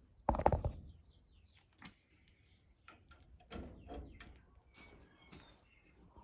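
A sharp clatter about half a second in, followed by scattered smaller knocks and rustling, with faint bird chirps behind.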